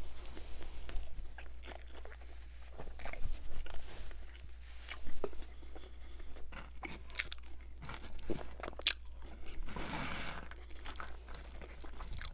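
Close-miked chewing of a crispy fried chicken McNugget: crunching, crackling and wet mouth clicks, with a few louder crunches about three to five seconds in.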